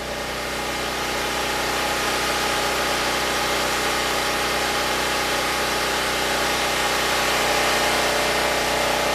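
Predator 6500 portable generator's engine running steadily, growing louder over the first couple of seconds and then holding an even hum.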